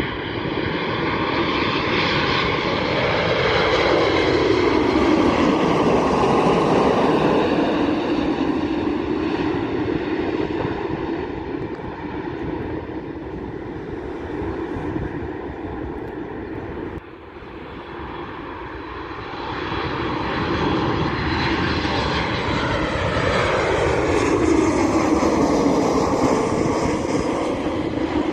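Boeing 787-10 airliner on final approach passing low overhead, its jet engine noise swelling and then falling in pitch as it goes by. About seventeen seconds in the sound drops abruptly and gives way to a Boeing 737 MAX 8 on approach, its CFM LEAP-1B engine noise building and falling in pitch as it passes.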